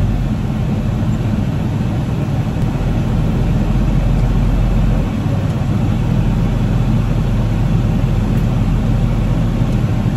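Tractor engine running steadily, heard from inside the closed cab, with the cab's air-conditioning fan blowing, a sound like wind.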